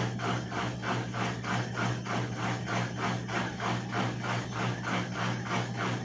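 EASY top-load washing machine in spin mode failing to spin: its motor gives a steady electrical hum with a regular scraping rub about four times a second. The motor sounds bound up, which the repairer traces to rust inside the motor.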